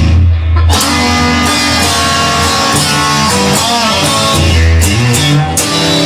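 Rock music led by an electric guitar over a heavy low bass part, with a few notes bent in pitch a little past halfway.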